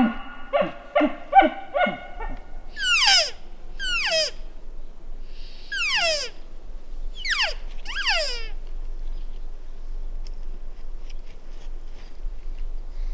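Elk calling: a bull elk's bugle ending in a quick run of grunting chuckles, followed by five high squeals, each falling steeply in pitch, about a second or two apart.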